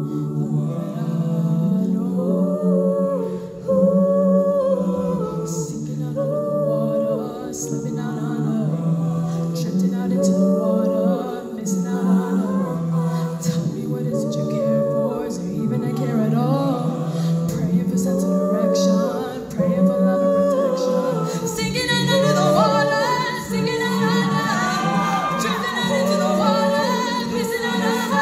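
Mixed-voice high-school a cappella group singing into handheld microphones: backing voices repeat chords in a steady rhythm under a lead, with short sharp percussive hits. A higher, fuller passage comes in about three-quarters of the way through.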